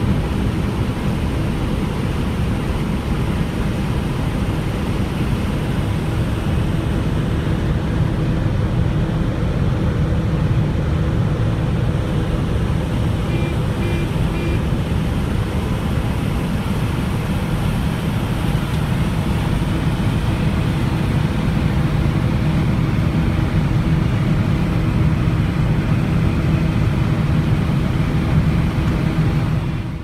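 Heavy farm machinery engine running steadily under load, with three faint short beeps about halfway through.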